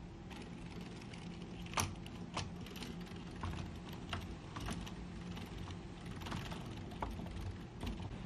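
PR2 robot running with a steady low hum, overlaid by irregular light clicks and taps as its gripper fits a gear onto a peg.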